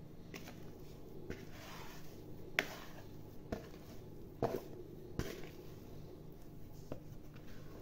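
Plastic mixing bowl upturned on the worktop, knocking softly a handful of times and scraping as sticky bread dough is worked out of it.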